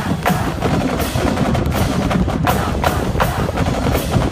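Marching band drumline playing: sharp snare cracks over bass drums.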